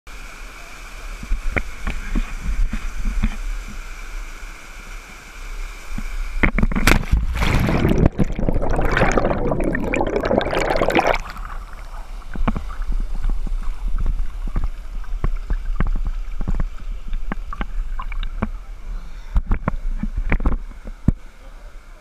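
Rushing waterfall, then, about six seconds in, loud splashing and churning water for four or five seconds as an action camera goes down the falls into the plunge pool. After that, quieter moving water with many small sharp knocks.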